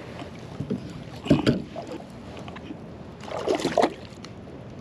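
Small striped bass splashing at the surface against the side of a kayak as it is grabbed by hand, in two short bursts: one about a second in with a low thump, and another about three and a half seconds in.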